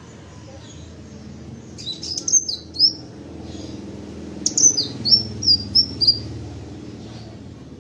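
Sepah raja sunbird (Aethopyga) giving two bouts of sharp, high chirps: a quick cluster about two seconds in, then a run of about six short falling notes from the middle on. A steady low hum runs underneath.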